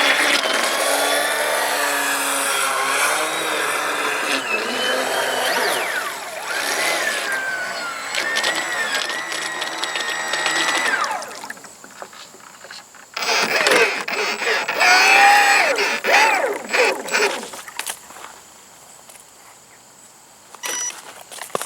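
Small electric motor of a radio-controlled model whining, its pitch rising and falling as the throttle changes. It runs for about eleven seconds, stops, then comes back for a few seconds of short revs before dropping away.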